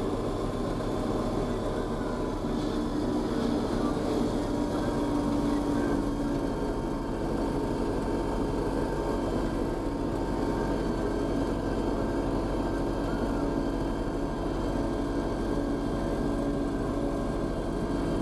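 Renault Ceres 95X tractor engine running steadily under way on the road, heard from inside the cab.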